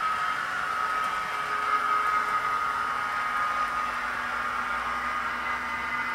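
Recorded Eurostar sounds played from a model's DCC sound chip: a steady hiss of carriage air conditioning with a thin, high, held squeal of wheel flanges on a curve, and a lower hum joining about halfway.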